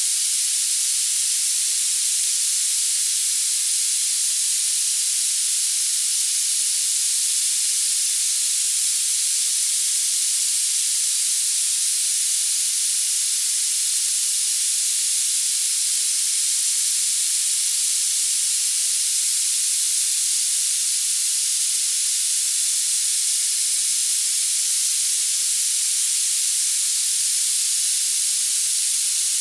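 Steady high-pitched hiss of tinnitus-masking noise, unchanging, with no low or middle pitches and most of its weight in the very highest pitches.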